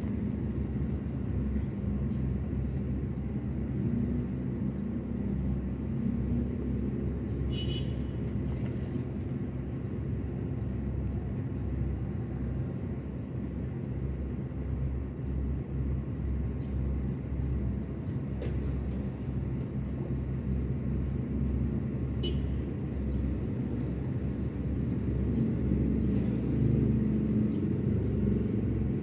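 Steady low outdoor rumble, with two brief faint high chirps about eight seconds in and again about twenty-two seconds in.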